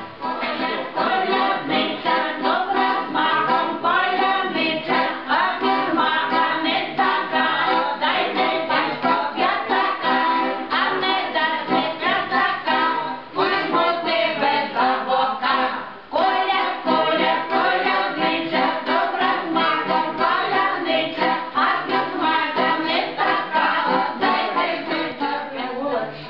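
A small group of women singing a folk-style song together to a button accordion, with a steady beat; the singing dips briefly twice around the middle.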